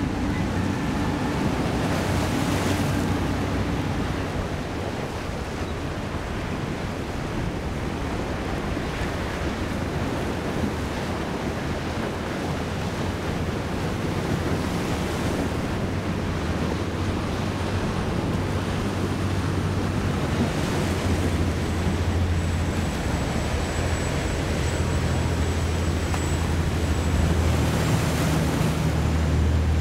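Wind buffeting the microphone over a steady wash of waves and surf, with the low, steady drone of a large sportfishing yacht's engines underneath that grows louder at times.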